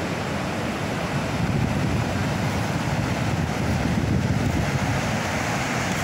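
Ocean surf breaking on a sandy beach, a steady wash of waves mixed with wind buffeting the microphone.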